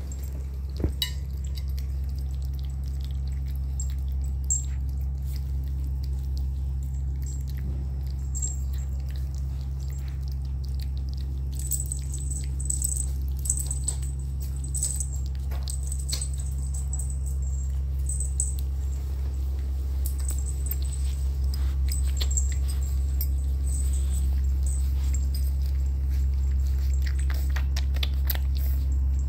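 Puppies feeding: many small wet clicks of lapping and chewing, with short faint high squeaks, over a steady low hum.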